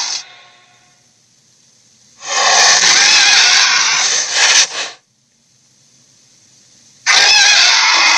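Sharptooth dinosaur roar sound effects, twice. The first is a long, rough roar of about three seconds that breaks off in a couple of short bursts. The second starts about seven seconds in.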